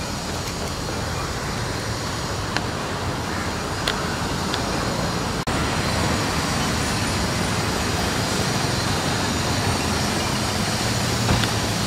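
Steady street traffic noise, with a brief dropout about five seconds in.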